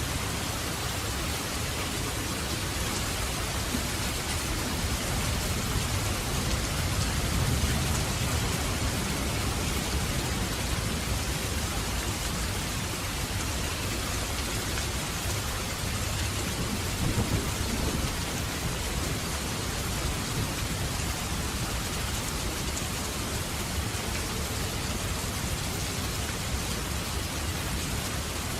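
Steady heavy rain hissing, with low thunder rumbling under it, swelling about a quarter of the way in and again around two-thirds of the way through.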